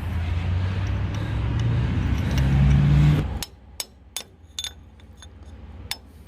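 An engine running, its pitch rising over the first three seconds, then cutting off suddenly. After that come a few sharp, scattered metallic taps.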